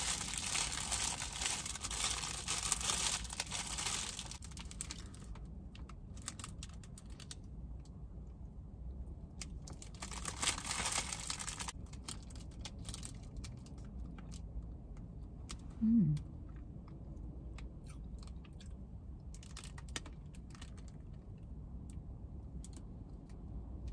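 Plastic-fronted sandwich packet crinkling as a toasted panini is pulled out of it, for the first few seconds and again about ten seconds in, then crunchy bites and chewing of the toasted bread. A short low "mm" hum about sixteen seconds in.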